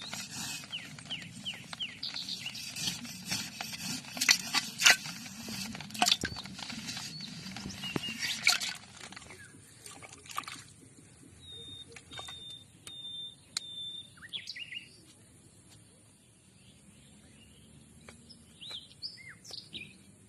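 Clicks, knocks and rustling for about nine seconds, then quieter with birds calling: a short run of even, high piping notes, then a few chirps near the end.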